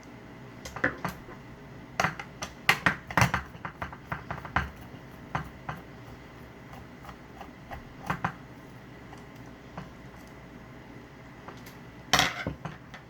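Metal parts of an Onity hotel door lock and a screwdriver clicking and clinking as the lock is taken apart: scattered light knocks, with a busy cluster about two to three seconds in and a loud clatter near the end.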